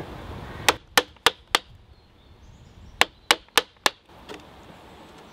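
Hand-tool strikes on green oak: two quick runs of four sharp knocks, about a third of a second apart, one near the start and one about three seconds in.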